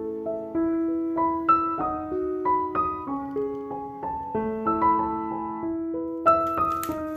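Background music: a slow, gentle piano melody of single notes, each ringing and fading before the next.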